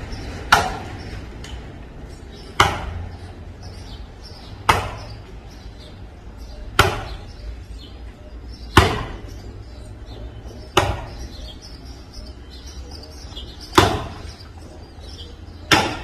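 Axe chopping into the wood of a felled mango tree: single sharp strikes about every two seconds, eight in all, with a longer pause before the last two.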